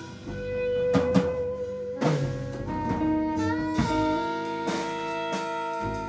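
Jazz band playing: long held saxophone notes over guitar, bass and drums, with cymbal and drum hits.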